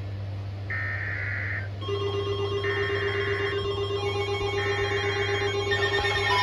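Weather radio sending an EAS/SAME digital header: three warbling data bursts, each about a second long and about a second apart, over a steady electrical hum. From about two seconds in, steady held tones set in under the bursts.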